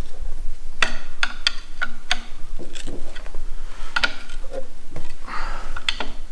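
Ratchet wrench working bolts on a Volvo T6 engine block: sharp metallic clicks in short irregular runs, a few a second, with a brief scrape near the end.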